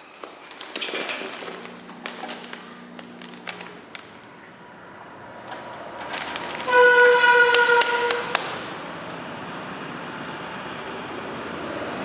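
Dry chipped stalks crackling and rustling with sharp clicks as they are handled. About halfway through, a loud steady humming tone lasts just over a second, followed by a steady hiss that cuts off suddenly at the end.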